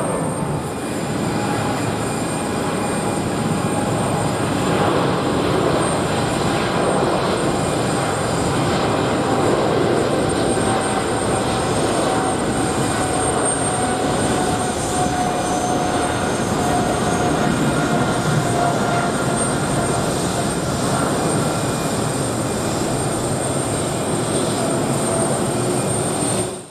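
Jet engines of a Boeing 777 at takeoff power: a loud, steady rush with a faint whine that drifts slightly lower in pitch midway, through the takeoff roll and lift-off.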